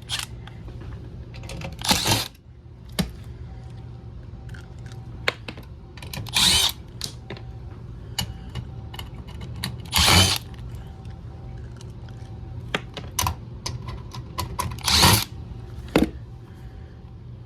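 A power drill runs in four short bursts, with small clicks and knocks in between. A steady low hum continues underneath, from the air handler running.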